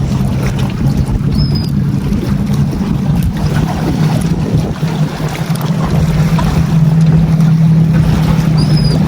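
Boat engine running steadily, a low drone that grows louder about six seconds in, with wind noise on the microphone.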